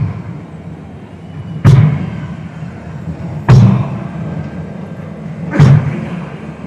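Mizhavu, the large copper pot drum of Koothu, struck by hand three times, about two seconds apart, each a deep boom that rings on and dies away.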